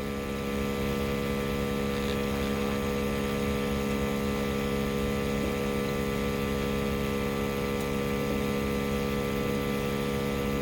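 A steady mechanical hum with several held tones, unchanging throughout.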